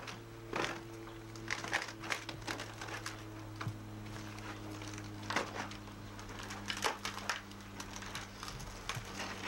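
An old wooden gate being wrenched apart and pried off its post with a bar: irregular cracks and knocks of wood, over a steady low hum from the recording.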